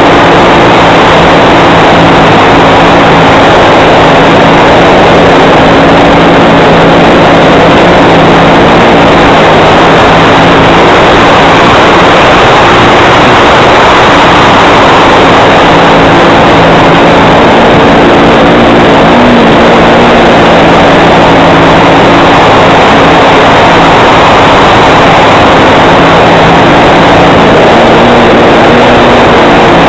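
OS FS 91 four-stroke model-aircraft engine and propeller running steadily at speed, heard very loud and close, with a dense rush of noise under it. Its pitch shifts slightly a few times, around ten seconds in and again near twenty.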